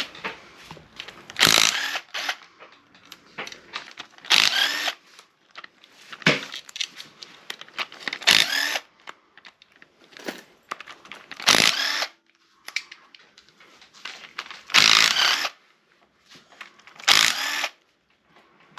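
A cordless power tool, a drill or electric ratchet, spinning bolts out of an engine in about eight short runs of under a second each, with light clicks and clatter of metal parts between runs.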